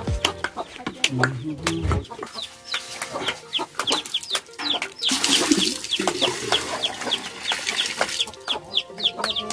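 Chickens clucking with rapid, high, falling cheeps, several a second, along with scattered knocks and clatter from a metal bucket being hauled up and emptied at a well.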